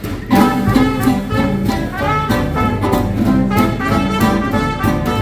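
Live hot-jazz swing band playing an instrumental passage, with horns carrying the tune over a steady rhythm section beat.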